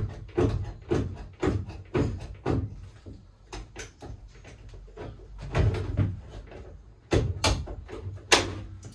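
Hand nibbler biting through a VW Crafter's sheet-steel panel support brace, a sharp clack with each squeeze of the handles. The strokes come about twice a second at first, then pause and come more irregularly near the end.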